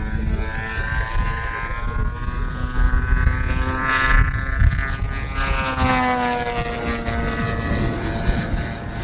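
Petrol two-stroke engine with MTW tuned pipes on a Pilot RC Laser 88 aerobatic model plane, running in flight. Its pitch climbs to a peak about four seconds in, then slides steadily down over the next few seconds as the plane passes and pulls away.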